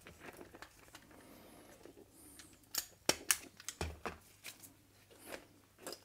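Hand wire stripper and the wires of a motorcycle wiring harness being handled on a workbench: quiet rustling of the wires, a few sharp clicks of the tool around three seconds in, and a dull knock just after.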